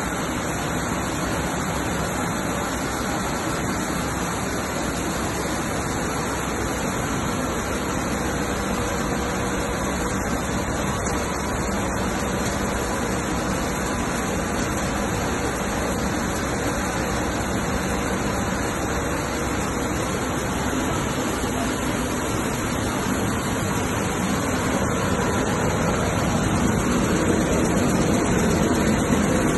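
Grain destoner running: a steady rushing machine noise as grain passes through the vibrating machine. It grows a little louder near the end.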